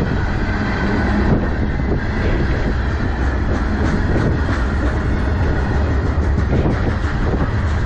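Freight train's covered hopper cars rolling past close to the track: a steady rumble of steel wheels on rail, with repeated clicks as the wheels pass over the rails.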